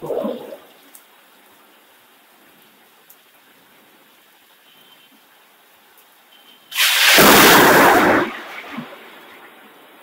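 Faint steady hiss of heavy monsoon rain, broken about seven seconds in by a sudden loud clap of thunder that lasts about a second and a half and then fades away.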